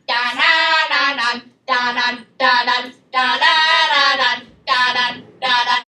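A girl singing unaccompanied: a line of about seven short sung notes with brief silent gaps between them, the last one cut off sharply.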